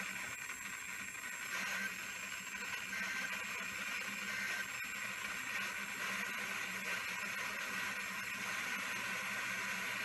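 Steady hiss of static from a weather radio receiver between broadcasts.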